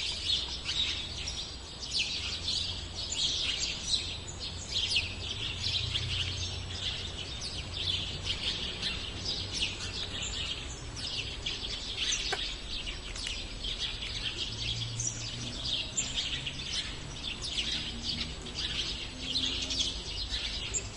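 A flock of sparrows chirping, many short chirps overlapping without a break, over a low steady rumble.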